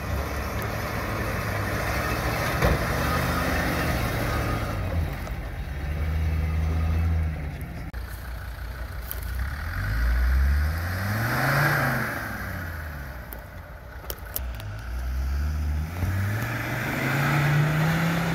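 Land Rover 4x4 engines revving under load as they climb through rutted mud and over a bank. The engine note surges up and falls back several times, most clearly about ten seconds in and again near the end.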